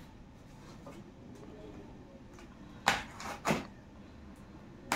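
A small cardboard parcel and a knife handled on a table: a loud knock about three seconds in, two lighter knocks and scrapes just after, and a sharp click near the end as the knife starts on the packing tape.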